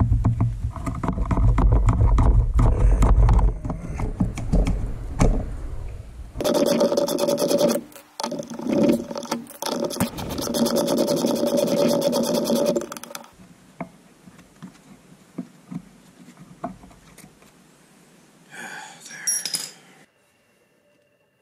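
Socket ratchet clicking rapidly as it twists out a stuck bolt, with clinks and scrapes of metal tools. The fast clicking stops a little over halfway through, leaving a few light clinks.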